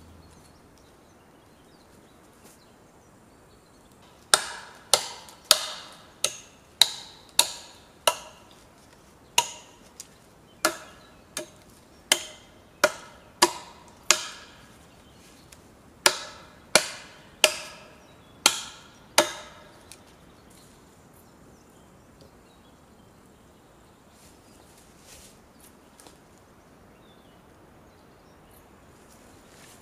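A tool striking wood in steady blows, about twenty sharp knocks in three runs at roughly one and a half a second, each with a short ring.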